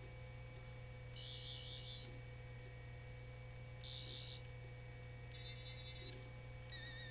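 Toy sonic screwdriver's electronic sound effect: four short, high-pitched warbling buzzes, each lasting about half a second to a second, set off one after another.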